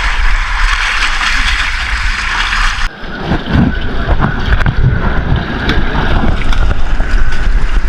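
Wind buffeting the microphone aboard a small fishing boat at sea, a loud, even rushing noise that changes abruptly about three seconds in to a lower, gusty rumble.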